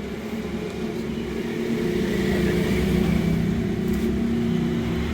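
Washing machine motor, freshly fitted with new bearings and run on a 10 µF capacitor, running with a steady hum that grows louder about two seconds in as it comes up to speed. It runs smoothly, without bearing noise.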